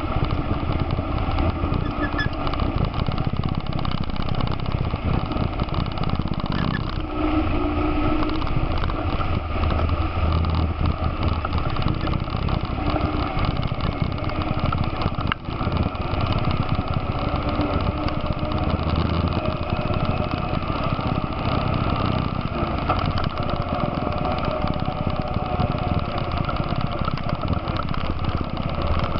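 ATV engine running steadily as the quad rides along a trail at an even speed, heard from on board the machine.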